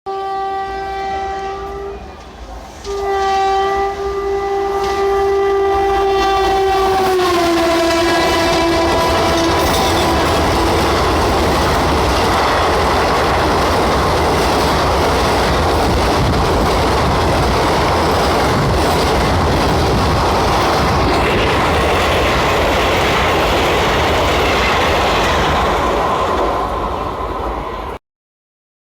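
Indian Railways express train running through a station at high speed: the locomotive's horn sounds a short blast, then a longer one that drops in pitch as it passes. The rush and clatter of the coaches over the rails follows, until the sound cuts off suddenly near the end.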